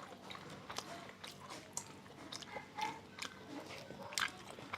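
A person chewing spicy stir-fried beef tripe, heard as a string of short, irregular mouth clicks and smacks.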